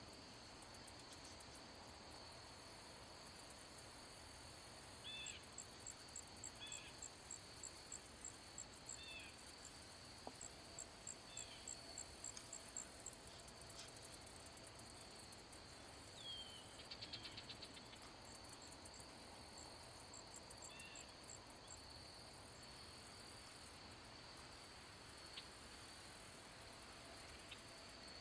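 Faint insect chorus: a steady high trill, joined by a run of quick high chirps at about two to three a second from about five to thirteen seconds in, and a few short falling call notes.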